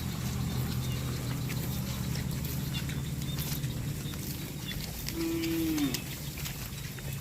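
Cattle mooing: a long, low moo that fades out a little over halfway through, then a shorter, higher call that drops in pitch at its end, with faint scattered clicks alongside.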